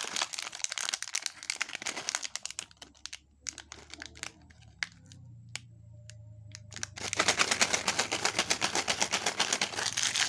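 Plastic candy wrapper being crinkled and pulled open by hand: a dense run of crackling, then scattered single crackles and clicks, then about three seconds of louder, faster crackling near the end.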